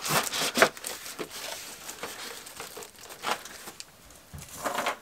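Packaging crinkling and rustling as items are handled, in several short bursts with quieter stretches between.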